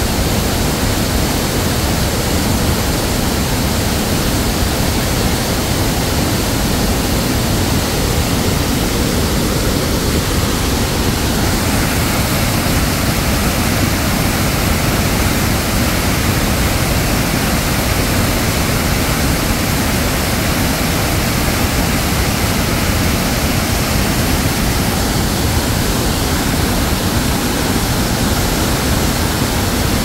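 Waterfall's rushing water: a loud, steady noise with no break, slightly brighter in its higher range from about twelve seconds in.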